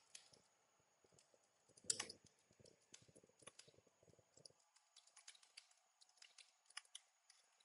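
Faint computer keyboard key presses, scattered and irregular, with one louder click about two seconds in.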